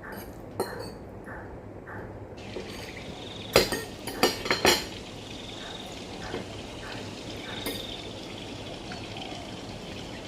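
Eating at the table: a metal spoon or fork clinking and scraping against a plate, with a cluster of sharp clinks about three and a half to five seconds in.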